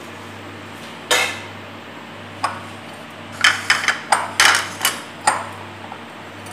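Sharp glass clinks as battered bitter gourd slices are mixed by hand in a ridged glass bowl and the bowl is handled on the counter. There is one loud clink about a second in, another at about two and a half seconds, then a quick run of clinks in the second half. A steady low hum from the induction cooktop runs underneath.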